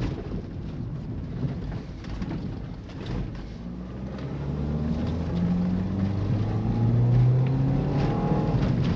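Freshly rebuilt Nissan Livina 1.8 MR18 engine heard from inside the cabin while driving, accelerating, with tyre and road rumble. About halfway through the engine note comes up and grows louder, rising in pitch near the end.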